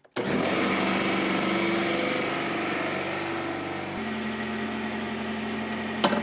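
Pancake air compressor (6-gallon tank) switched on with a click, its motor and pump starting at once and running steadily. A sharp knock near the end.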